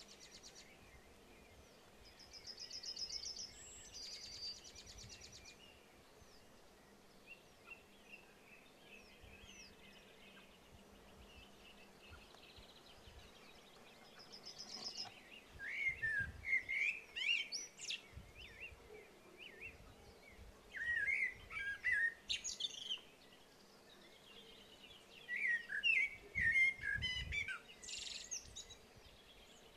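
Small birds singing: a high buzzy trill early on, then three bouts of quick twittering, warbling song a few seconds apart, over quiet open-country background.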